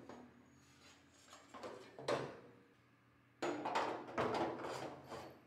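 A sharp knock about two seconds in, then a stretch of knocks and clatter from tools and metal parts of a kerosene torpedo heater being handled during reassembly.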